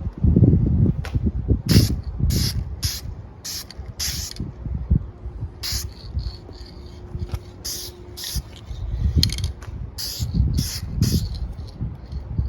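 Aerosol can of silver engine paint spraying in more than a dozen short hissing bursts as a coat goes onto a motorcycle exhaust header pipe. Wind rumbles on the microphone.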